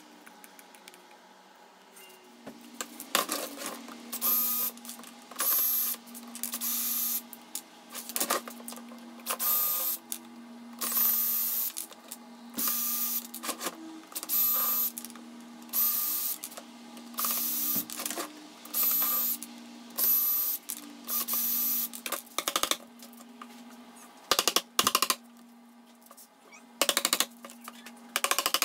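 Cordless drill/driver run in repeated short bursts, about one every second and a half, each a steady motor whine, as it backs screws out of a melamine mold. Near the end come a few sharp knocks.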